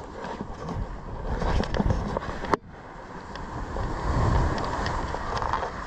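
Wind buffeting a body-worn camera's microphone, with the rush of wind and sea. There is one sharp click about two and a half seconds in, after which the sound is briefly quieter before the gusts build again.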